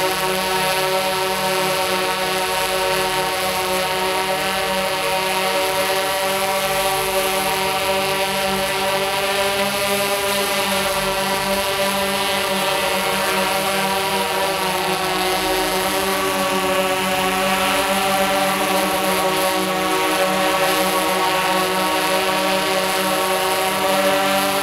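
Tarot X8 octocopter's eight motors spinning DJI 1552 propellers: a steady, loud multi-tone buzz, its pitch wavering and shifting around the middle as the craft climbs up to a hover.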